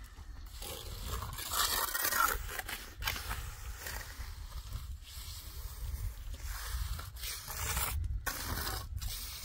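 Irregular scraping and rustling, such as tools working rough material, over a steady low rumble.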